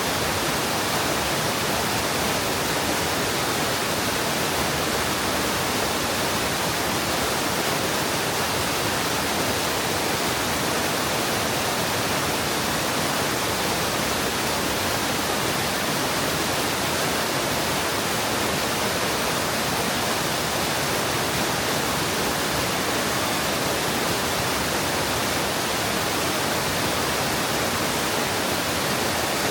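Mountain stream water rushing steadily over rocks into a pool, a constant even rush with no change.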